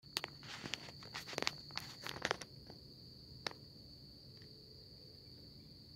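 Crickets chirring steadily in one high-pitched tone at night. A quick run of sharp clicks and rustles in the first two and a half seconds, and one more click about three and a half seconds in, sound over it.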